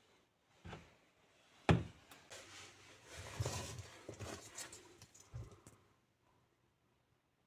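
Two knocks about a second apart, then a few seconds of irregular rustling and clattering handling noise.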